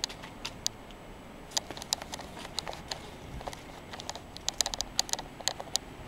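Steady fan noise from a two-fan LG HVAC outdoor unit, broken by many irregular sharp clicks and crackles, bunched most densely a little before the end.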